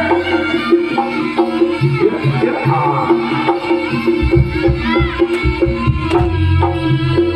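Live jaranan music: an East Javanese gamelan ensemble with hand drums beating a steady rhythm over a held tone, with heavy bass, played loud through a sound system.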